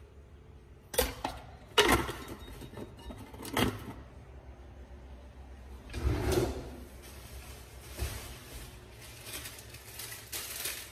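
Scattered knocks and clatters of kitchen utensils and containers being handled, about five over the span, the longest and fullest one about six seconds in, over a low steady hum.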